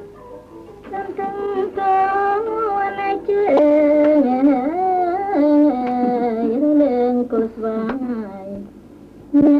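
A woman singing a slow Khmer song, holding long notes that slide and waver between pitches, with no instruments heard behind her voice.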